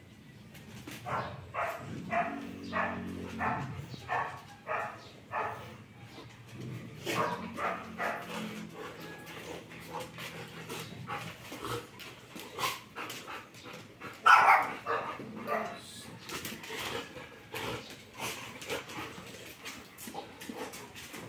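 Two golden retrievers play-fighting, growling and barking at each other, with a run of short barks about two a second in the first few seconds and one loud bark about two-thirds of the way through.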